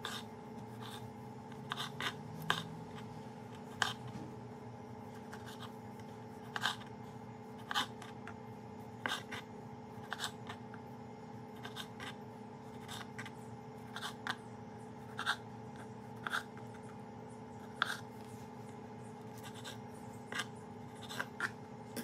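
Kitchen knife halving grape tomatoes on a wooden cutting board: short, sharp taps as the blade cuts through and meets the board, coming irregularly about once a second, over a steady low hum.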